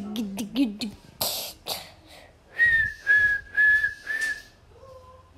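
Mouth-made sound effects: a hummed, wavering voice, then two breathy blowing noises, then four short whistled notes at one steady high pitch.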